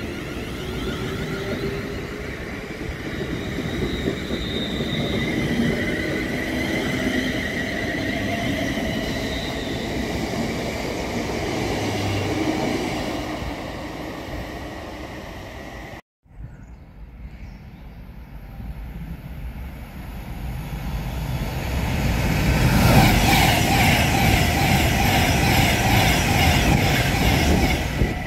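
London Northwestern Class 350 electric multiple unit moving along the platform, its traction motors whining with a rising pitch over wheel and rail noise. After a sudden cut, an Avanti West Coast Class 390 Pendolino electric train approaches at speed, building to a loud rush of wheels and air as it passes.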